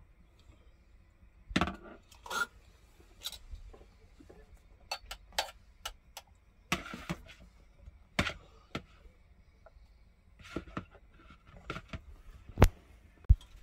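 Stainless steel potato ricer being worked over a steel pot as boiled potatoes are pressed through it: irregular metal clicks, clinks and knocks of the handles, basket and utensils, with a sharp click near the end as the loudest.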